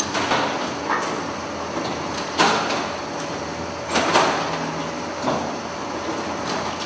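Automated production-line machinery running with a steady mechanical noise, broken by several loud clunks at irregular intervals, the loudest about two and a half and four seconds in.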